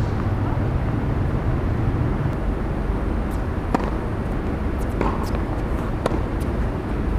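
A tennis rally on a hard court: from about halfway in, a few sharp pops of the ball being struck by rackets and bouncing. Under them runs a steady low rumble of outdoor background noise.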